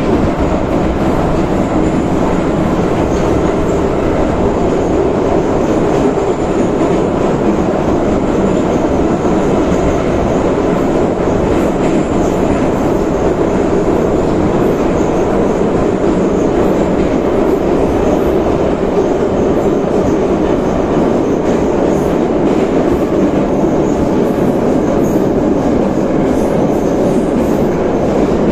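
An 81-717.5/714.5 metro train running through a tunnel at a steady speed, heard from inside the car at its end door: a loud, even rumble of wheels on rails and running gear that holds steady throughout.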